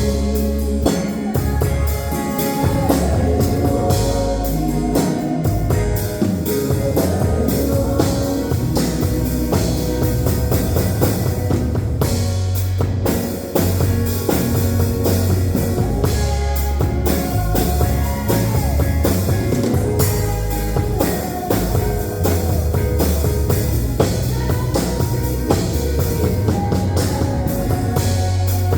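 Band music with drum kit, bass and guitar playing steadily throughout.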